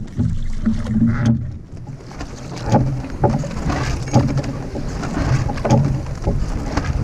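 Small wooden sailing dinghy slapping through a powerboat's wake: water knocks against the hull about twice a second over a steady low rumble.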